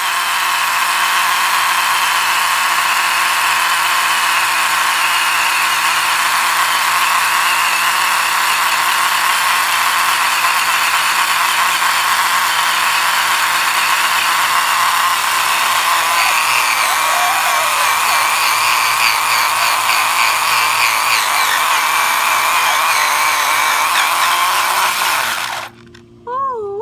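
RC buggy's electric motor and drivetrain at full throttle while the car is held in place, its tires spinning against concrete in a burnout: a steady high whine over a rasping hiss. It cuts off suddenly near the end.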